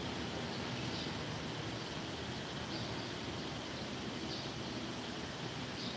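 Steady outdoor background noise, with a faint short high chirp every second and a half or so.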